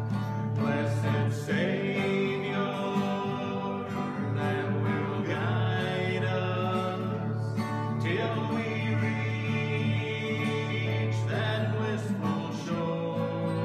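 Two acoustic guitars playing a country-gospel tune, with men's voices singing along.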